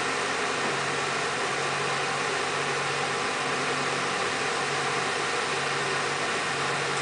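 Steady drone of running machinery: an even, engine-like hum under a constant hiss that does not change.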